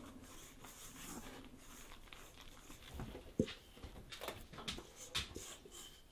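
Soft scraping and rustling as a floury potato-donut dough is tipped out of a stainless steel mixing bowl onto a metal counter and pressed together by hand. In the second half come a few light knocks and clicks, the sharpest about three and a half seconds in.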